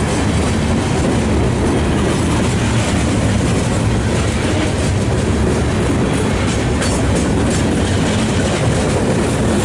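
A loaded Herzog ballast train's cars rolling past on the rails, a loud steady rumble with a cluster of sharp wheel clicks about seven seconds in.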